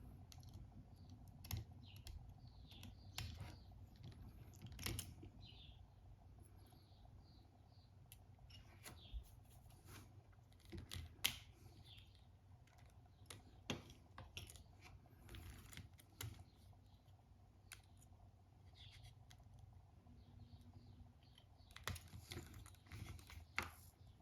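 Faint, irregular small clicks and taps of hand tools and small parts being handled while an iPhone 12 Pro Max is opened up, with a few sharper taps near the end.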